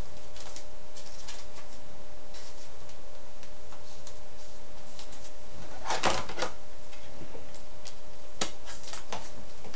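Handling noise of trading cards and a pack wrapper: scattered light clicks and rustles, with a louder crinkling patch about six seconds in and a few more near the end, over a steady hum.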